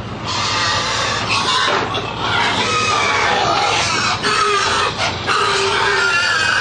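Many pigs crammed into an overloaded livestock transport trailer squealing and grunting without pause, a dense din of overlapping shrill squeals.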